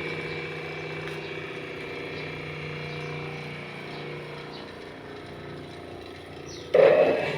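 Bosch GBG 60-30 bench grinder running with a smooth, steady hum and a high whine; the whine fades about two-thirds through. A loud sudden noise comes near the end.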